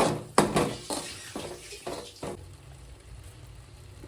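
A metal spoon stirring garlic-chilli paste in a cooking pan, knocking and scraping against it about seven times over two and a half seconds, the strokes getting softer, then only a quiet low steady sound.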